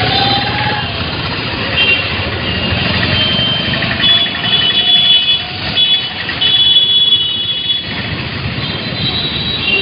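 Loud outdoor street and traffic noise, a steady rumble with short, high, steady tones that come and go.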